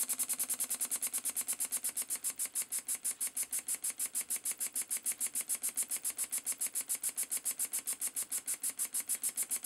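Elmer Verburg model beam engine running slowly on turned-down compressed air, its air exhaust puffing in a rapid, even hissing beat of about eight puffs a second.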